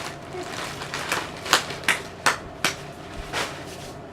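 Rhythmic sharp knocking, about two and a half strikes a second, starting about a second in: a masher striking the bowl as drained chickpeas are mashed.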